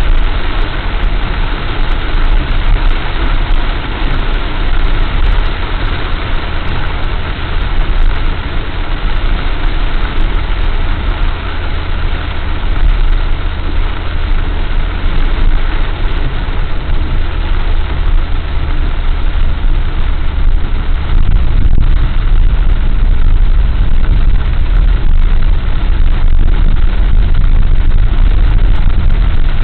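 Steady cabin noise of a car driving on a wet highway in heavy rain: a low engine and road rumble under a hiss of rain and tyre spray. It grows a little louder in the last third.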